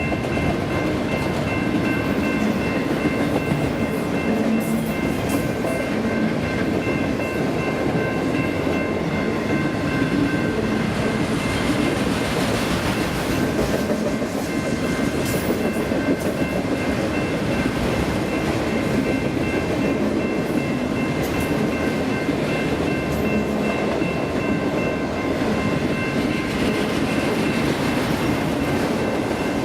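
Autorack cars of a freight train rolling past, a steady rumble with wheel clatter on the rails, and a steady high ringing whine over it.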